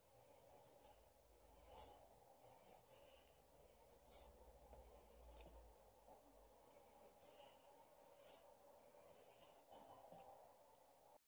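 Faint scratching of a pencil on paper in short, irregular strokes as small circles are drawn.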